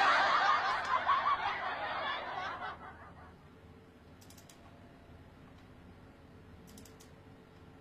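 A woman's soft laughter trailing off over the first three seconds, then near silence with a few faint clicks.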